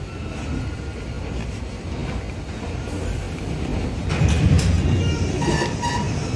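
Paris Métro MF77 train standing at the platform with a low steady rumble; about four seconds in, its doors and the platform screen doors slide open with a loud clatter of sharp clacks, followed by a few short high tones.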